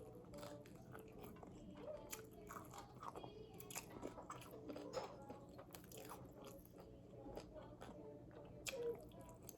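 Close-up biting and chewing of an extra-crispy fried chicken drumstick: repeated short crunches of the breaded skin, with wet chewing between them, over a faint steady hum.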